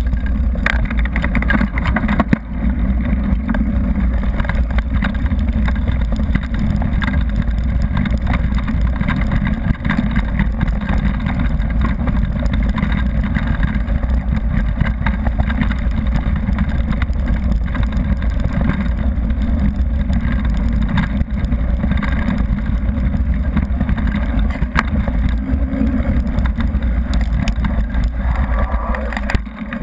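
Steady wind rumble on an action camera's microphone during a fast descent on a gravel forest road, with tyre noise and scattered rattles and knocks throughout.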